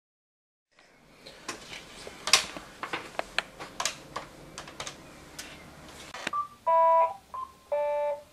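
Desk phone keypad buttons clicking in a quick string as a number is dialled. Near the end the desk phone being called rings with an electronic ring tone, two short bursts at slightly different pitches.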